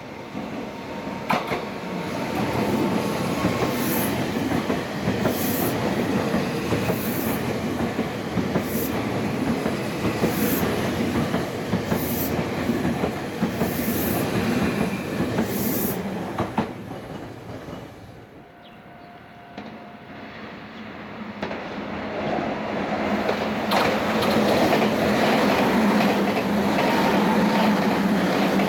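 Meitetsu electric trains passing through the station, one a 2200 series, with wheels clacking over the rail joints about every second and a half. After a lull about two-thirds of the way through, another train runs past with a steady low hum.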